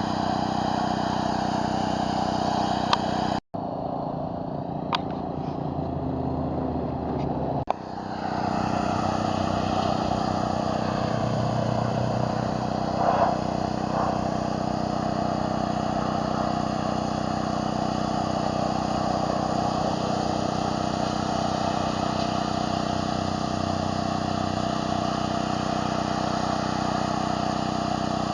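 Small gas engine of a pressure washer running steadily at constant speed under the hiss of the water spray. The sound breaks off for an instant about three and a half seconds in and shifts in tone about eight seconds in.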